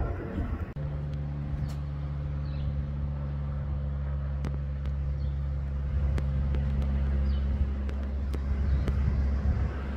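Steady low drone of a propeller aeroplane flying high overhead, starting under a second in: a few hum tones that hold their pitch throughout. Faint short bird chirps now and then.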